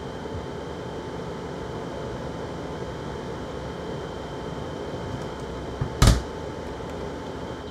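Steady fan-like hum of running lab equipment, with a faint steady whine in it. A single sharp knock sounds about six seconds in.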